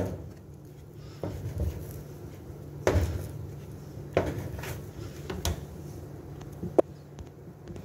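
A plastic dough scraper cutting through soft bread dough and knocking and scraping on the work surface: several separate taps and scrapes, the sharpest a click near the end, over a steady low hum.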